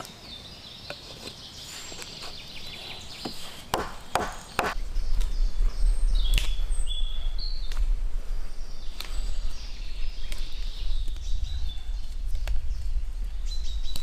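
A few sharp knocks of an axe on wood about four seconds in, then a hand auger being twisted into a log: a steady, uneven low grinding rumble. Birds chirp in the background.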